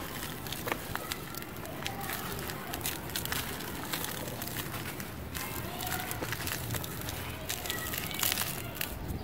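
Dry cement chunks crushed and crumbled between bare hands: a continuous gritty crunching and crackling as lumps break apart, with powder and grit pouring through the fingers.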